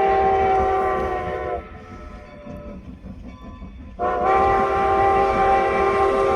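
Locomotive whistle sounding a chord-like blast that stops about one and a half seconds in, then a second long blast starting about four seconds in, over the low rumble of the train on the rails.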